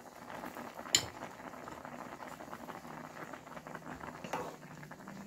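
Potato chunks boiling in a saucepan of water, bubbling and crackling steadily. A sharp clink comes about a second in, and a softer knock comes a little after four seconds as a ladle stirs the pot.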